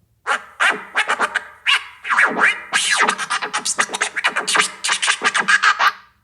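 A rapid string of short scratchy sounds, each sliding up or down in pitch, several a second, stopping suddenly shortly before the end.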